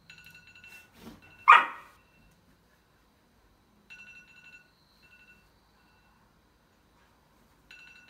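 A phone alarm ringtone sounding in short bursts of steady high tones: at the start, again about four and five seconds in, and near the end. A dog gives one loud bark about a second and a half in, reacting to the alarm.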